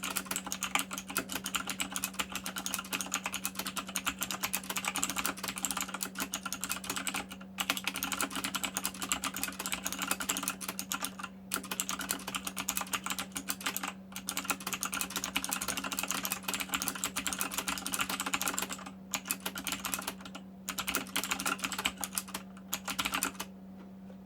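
Fast touch-typing on an Azio MGK-1 RGB mechanical keyboard with clicky Kailh Blue switches: a dense, continuous run of sharp key clicks, broken by a few short pauses, that stops just before the end. A steady low hum sits underneath.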